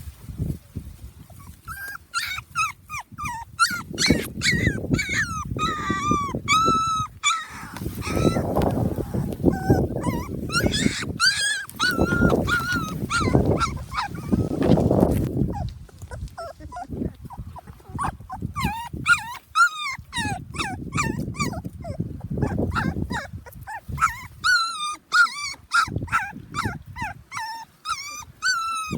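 Puppies whimpering and yelping in bouts of short, high cries, with stretches of low rumbling noise in between.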